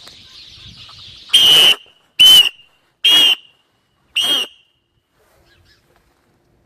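A HyperWhistle blown in four short, very loud, shrill blasts about a second apart, used to scare birds off. Before the first blast, a dense high chatter of many house sparrows in a tree.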